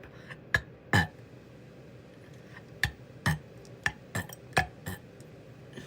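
About eight short, sharp clicks and knocks at uneven intervals, the loudest about a second in; no burp is heard.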